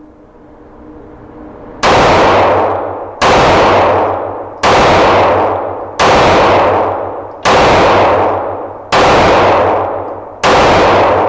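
Springfield Armory XD-E 3.3 9mm pistol fired seven times at a steady pace, about one shot every second and a half, starting about two seconds in. Each shot rings on in the long echo of an indoor range.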